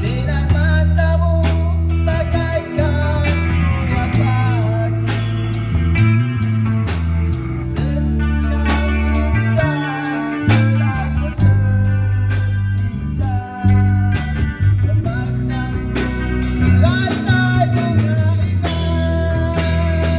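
Amateur rock band playing live: distorted electric guitars through amplifiers over a drum kit's steady beat, with a man singing into a microphone.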